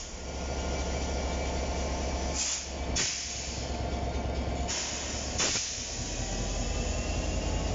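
Class 67 diesel-electric locomotive standing with its engine idling in a steady low rumble. Twice, about two and a half and five seconds in, air hisses out from its air system for about half a second, each burst ending sharply.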